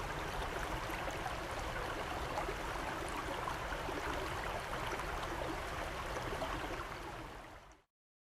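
Steady rush of flowing water, like a stream. It fades out about seven seconds in and gives way to dead silence.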